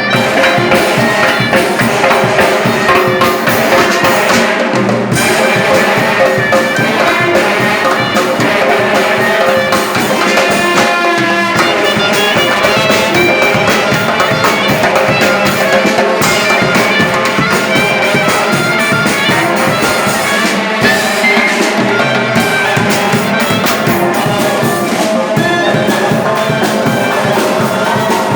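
Loud, continuous music from a band, with horns over a steady drum beat.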